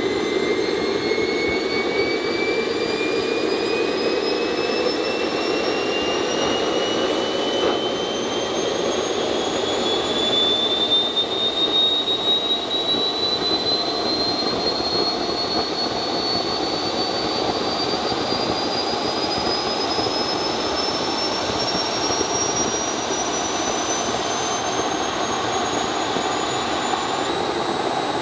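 Small RC turbine jet engine running on Jet-A kerosene after start-up. Its turbine whine climbs steadily in pitch over a steady jet rush as the ECU adapts to the new fuel and works toward target speed. Near the end the pitch starts to rise faster.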